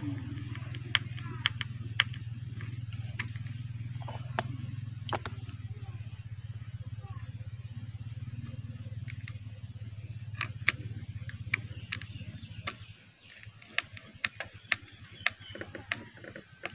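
Sharp clicks and taps of small screws and the plastic speaker housing being handled and fastened, over a steady low hum that cuts out about thirteen seconds in.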